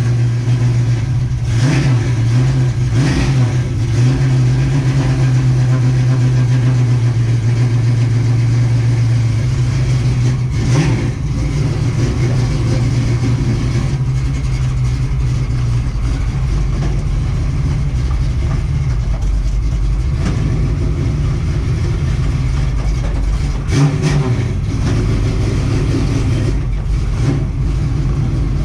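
1967 Mustang race car's engine running steadily, freshly started after sitting for months, with oil pressure up. There are a few brief changes in its note along the way.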